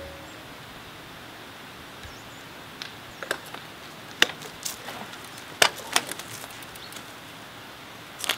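Steady outdoor background hiss with a scatter of sharp clicks and taps from about three seconds in: two cyclists walking their road bicycles on the tarmac.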